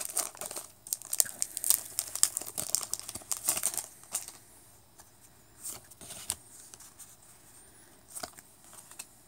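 Foil trading-card booster pack wrapper crinkling as it is torn open and the cards pulled out, for about four seconds. Then it goes quieter, with a few soft clicks as the stack of cards is handled.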